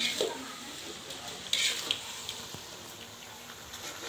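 A metal spoon stirring and scraping chicken pieces in spice sauce in an aluminium wok, over a low sizzle of frying. Two louder scrapes come near the start and about a second and a half in.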